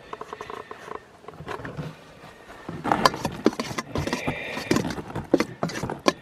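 Metal spoon scraping and clinking against a stainless steel bowl while stirring a thick, wet stew. A few light clicks at first, then denser and louder scraping and knocking from about three seconds in, with some brief metallic ringing.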